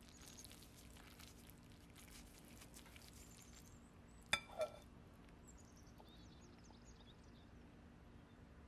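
Metal fork working noodles in a ceramic bowl: faint soft clicks as it stirs and lifts, then a single sharp clink of the fork against the bowl a little past the middle, followed at once by a duller knock. Faint bird chirps in the background.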